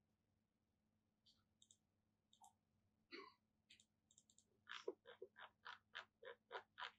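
Clicking of a computer being worked: faint scattered clicks at first, then a steady run of about four short clicks a second in the last third.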